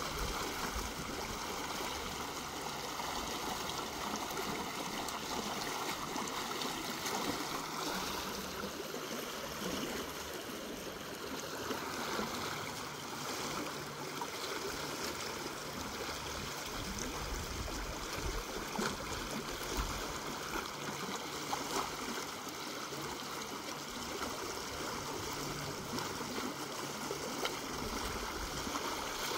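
Muddy floodwater rushing steadily out through a breach in a beaver dam as the dam is cleared, a continuous stream-like rush of churning water.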